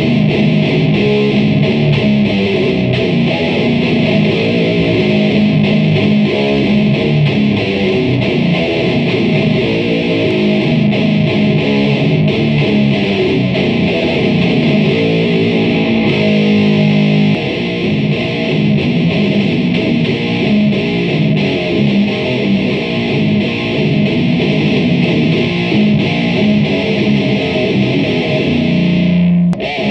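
Ibanez Xiphos seven-string electric guitar with EMG 81 pickups played through a Boss SD-1 overdrive and an SNK VHD solid-state preamp (Ampeg VH140C circuit), giving a heavily distorted, noise-gated death-metal tone. It plays continuous riffing, with a few held chords about sixteen seconds in.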